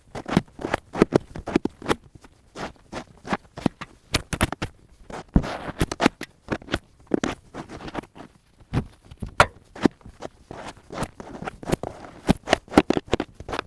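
Snow shovel scraping and knocking as snow is cleared off a trailer, an irregular run of sharp knocks and short scrapes, with footsteps crunching in snow.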